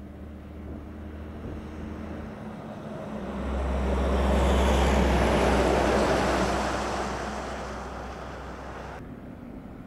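Diesel locomotive hauling a container freight train past: a low engine hum, then the rumble of the wagons on the rails swelling to a peak about five seconds in and fading away, cut off abruptly near the end.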